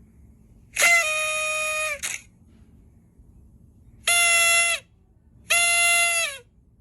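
Party horn blower blown three times: one blast of about a second, then two shorter ones a second apart, each a buzzy reed tone that sags in pitch as it ends.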